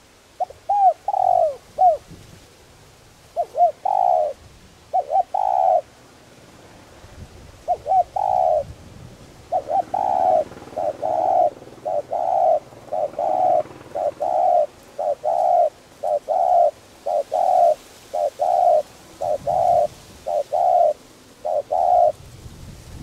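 Spotted dove cooing: a few short groups of coos at first, then from about ten seconds in a fast, steady run of coos, about two a second, that stops shortly before the end.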